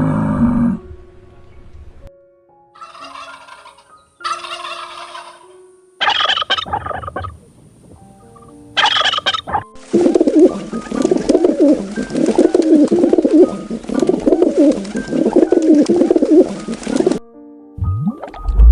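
Poultry calling: a few short, separate calls, then from about ten seconds in a long stretch of dense, fast-wavering calling from several birds that cuts off suddenly near the end.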